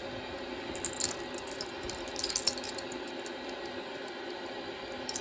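Small clicks and light clinks of a metal rhinestone necklace being handled, in two brief clusters, about one second in and again around two seconds in, over a steady low room hum.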